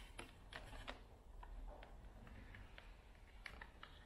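Near silence, with a few faint, light clicks and taps of multimeter test probes and their leads being handled and brought to car battery terminals.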